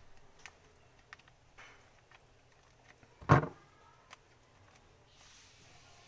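Scattered light clicks and taps of objects being handled, with one louder knock about three seconds in.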